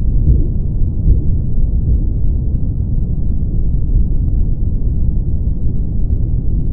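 Low rumble heard through a stethoscope during a blood pressure reading. One or two soft thumps in the first second or so fade out, and after that no distinct beats are heard, only a steady low rumble.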